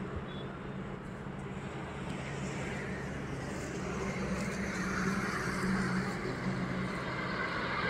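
Road traffic: an approaching car's engine and tyre noise growing steadily louder over a steady low engine hum.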